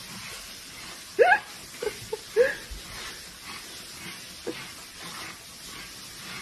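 A few short rising cries, the loudest about a second in, three more close together around two seconds in and a faint one past the middle, over a steady hiss.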